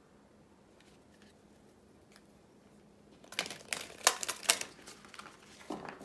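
A deck of oracle cards being riffle-shuffled by hand. After a quiet pause, about three seconds in, comes a rapid clicking flutter of cards falling together, and then a few softer clicks as the deck is squared up near the end.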